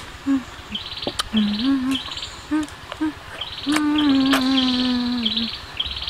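A woman's closed-mouth 'mmm' hums of relish while savouring food: several short ones, then one long held hum about two-thirds of the way through, with a few lip-smacking clicks. Insects buzz in pulses in the background.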